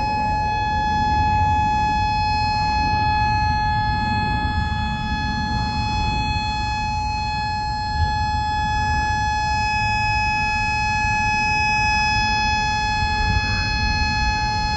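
Warning siren of an emergency alert held at one steady high pitch, over a low rumbling noise.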